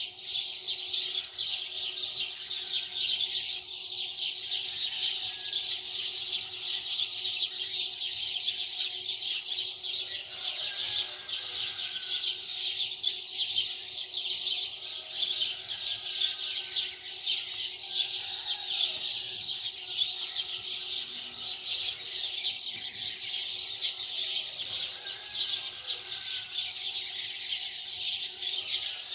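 Dense, continuous chirping of many small birds, with a faint steady hum underneath.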